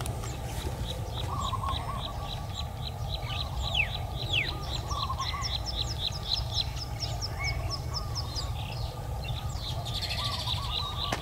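Birds calling in the open: a rapid run of short, high ticking notes about four a second, with lighter chirps lower down, over a steady low rumble.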